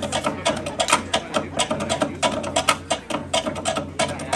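Dance music made of fast, even wooden drum strikes, several a second, played over loudspeakers.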